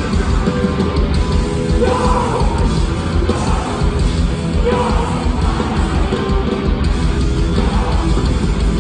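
Hardcore punk band playing live at full volume: distorted guitars, bass and pounding drums, with shouted vocals coming in phrase by phrase every few seconds.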